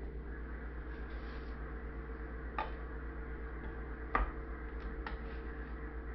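A few light clicks and knocks of a plastic cup being handled and set down on a hard countertop, the loudest about four seconds in, over a steady low hum.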